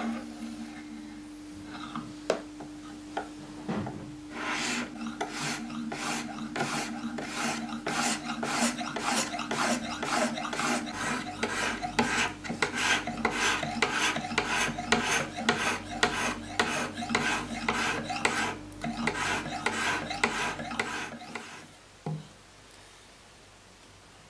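A whetstone on the guide rod of a fixed-angle knife-sharpening jig, rubbed back and forth along the edge of an N690 stainless steel blade wetted with WD-40 oil. It makes about two rasping strokes a second, and the strokes stop about 21 seconds in.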